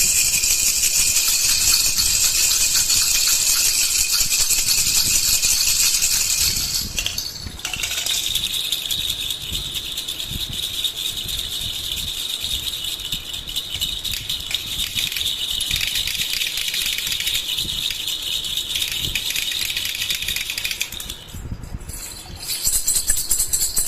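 A baby rattle is shaken steadily, giving a continuous hiss of rattling beads. It breaks off briefly about seven seconds in and again shortly before the end.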